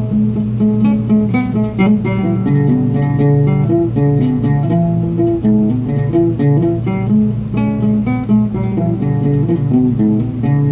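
Oud played solo: a quick plucked melody in a minor pentatonic scale, with low notes ringing beneath it throughout.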